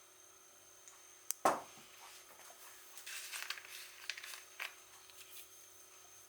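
Light handling noises: a sharp click, then a single knock about a second and a half in, followed by a couple of seconds of small clicks and scraping.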